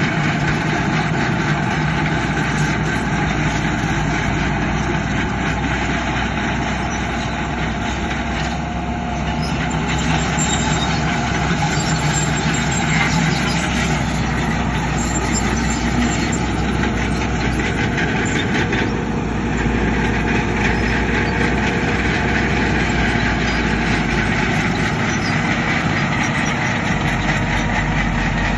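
Diesel engines of heavy earthmoving machinery, a bulldozer and dump trucks, running continuously at work, with the engine note shifting about nine and nineteen seconds in.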